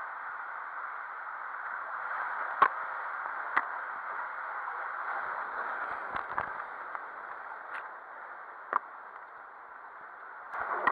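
Water rushing and a body sliding down an enclosed plastic water-slide tube, heard muffled, with several sharp knocks as the rider and camera pole bump the tube walls. Louder splashing in the pool near the end.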